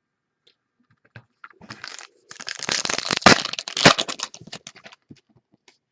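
A trading card pack wrapper crinkling and tearing open, with two sharp cracks in the middle, then scattered light ticks of cards being handled.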